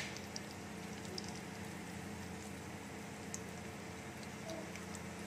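Hot oil sizzling faintly under semiya-coated potato cutlets shallow-frying in a pan, with small scattered pops, over a steady low hum.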